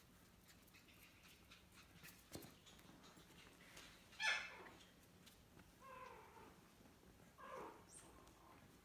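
Three short, high cries from a young pet at play, each sliding down in pitch; the first, about four seconds in, is the loudest.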